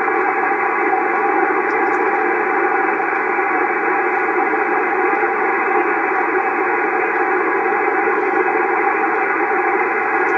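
Steady hiss of static from a shortwave receiver's speaker, monitoring the homebuilt 40-meter tube receiver's IF output. The sound is narrow and muffled, as through the receiver's filter, with faint steady tones in the noise.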